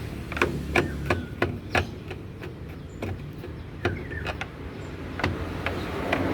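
Sharp clicks and light knocks of a screwdriver and the washing machine's plastic top panel being worked as its screws are undone: a quick run of about five in the first two seconds, then a few more spread out.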